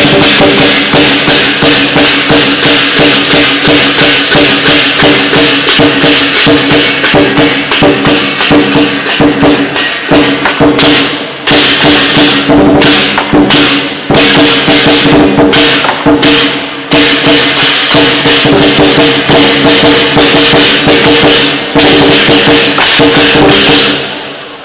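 Chinese lion dance percussion, a drum with clashing cymbals, playing a fast, dense rhythm with a steady metallic ring under it. It breaks off briefly a few times, then stops shortly before the end and rings out.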